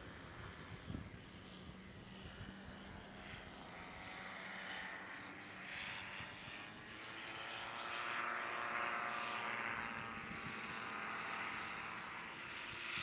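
Radio-controlled 1:5-scale Piper J-3 Cub model plane's motor and propeller running steadily overhead, growing louder about eight seconds in as it passes and easing off again.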